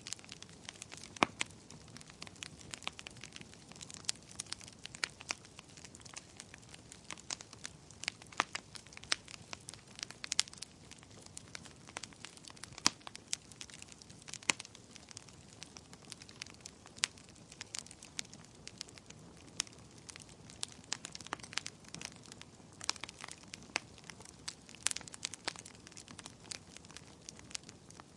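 Wood campfire burning and crackling, with frequent irregular sharp pops and snaps over a soft steady hiss.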